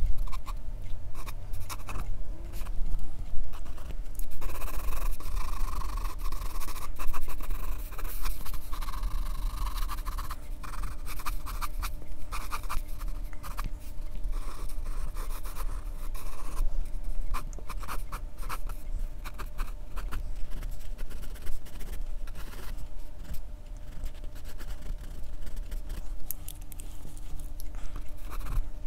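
Graphite pencil scratching on drawing paper in many short sketching strokes, with a longer run of continuous scratching about five to ten seconds in. A steady low hum runs underneath.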